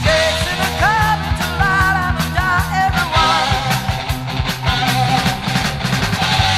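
Recorded NWOBHM heavy metal song: distorted electric guitars, bass and drums, with a wavering melody line riding on top.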